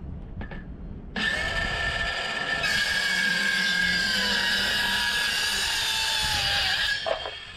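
Handheld circular saw starting about a second in and crosscutting a plywood board, running with a steady high whine that grows fuller as the blade bites into the wood and sags slightly in pitch under load. It cuts off suddenly near the end, followed by a short knock.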